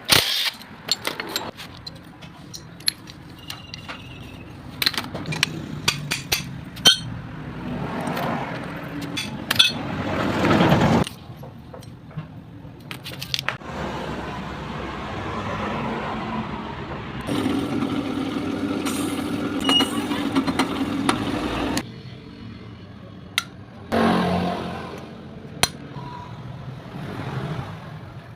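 Metal clinking and scraping of hand tools on a motorcycle, with a motor vehicle's engine running at times in between.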